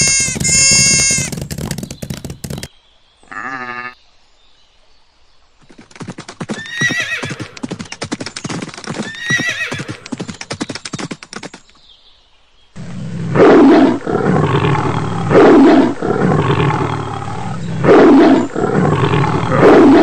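A sequence of animal calls: a goat bleating in two wavering calls, then a horse whinnying, then, from about two-thirds of the way through, a big cat roaring over and over, one roar about every two seconds.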